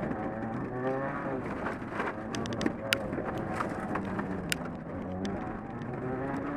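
Rallycross car's engine pulling hard and revving up and down through the gears, heard from inside the cabin, with loose gravel clicking against the car and two sharp stone hits about three and four and a half seconds in.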